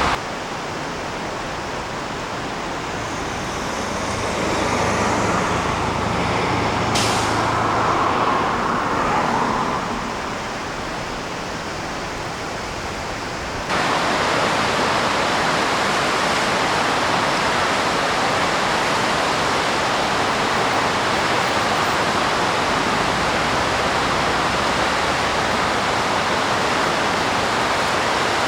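Steady rushing noise of highway traffic, with a vehicle passing and its engine hum swelling and fading between about four and ten seconds in. The sound jumps abruptly louder about fourteen seconds in.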